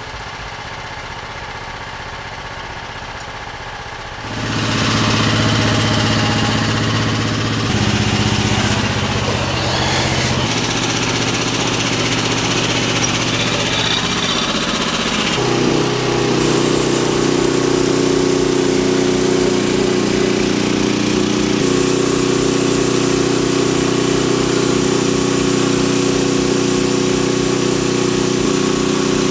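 Small engine driving a belt-driven saw, running steadily. About four seconds in it is throttled up and runs much louder. Around fifteen seconds in its pitch steps up and then holds steady.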